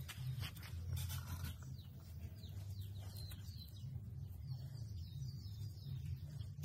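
Small birds chirping in quick repeated calls over a steady low hum, with a few soft scrapes in the first second or so.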